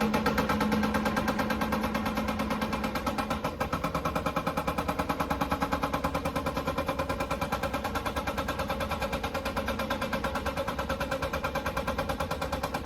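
Excavator-mounted hydraulic rock breaker hammering a hard rock ridge: a rapid, steady pounding of many blows a second. A steady tone runs under it for the first few seconds.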